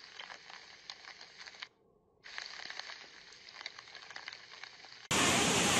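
Faint crackling hiss of floodwater, dropping out briefly about two seconds in; near the end a loud, steady rush of fast-flowing floodwater starts abruptly.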